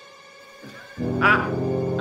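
Dramatic film-score music: a faint held synthesizer drone, then about a second in a loud low sustained chord. Short bursts of a man's laughter sound over it.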